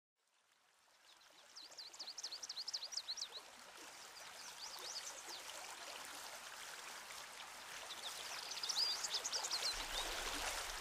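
Outdoor woodland ambience fading in: a steady rush like running water, with quick runs of high songbird chirping about two seconds in and again near the end.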